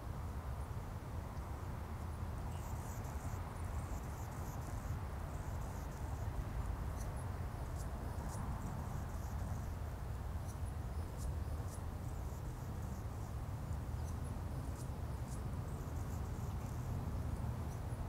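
Marsh ambience: a steady low rumble with faint, high-pitched chirps and ticks scattered over it.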